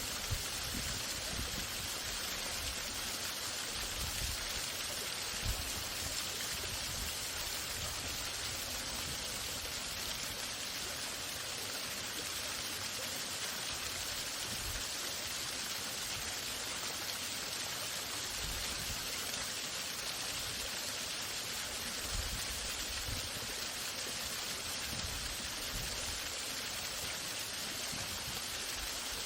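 Waterfall running steadily: a continuous, even rush of falling water.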